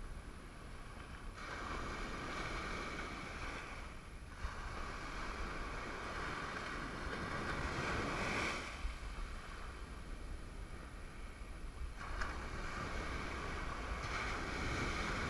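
Ocean surf breaking and washing up the beach, its hiss swelling and fading several times as waves come in, over a steady low rumble of wind on the microphone.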